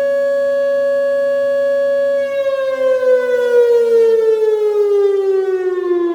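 Whelen WPS 2910 electronic outdoor warning siren sounding its alert tone: a loud steady tone for about two seconds, then a steady downward glide in pitch that drops off sharply at the end as the alert winds down.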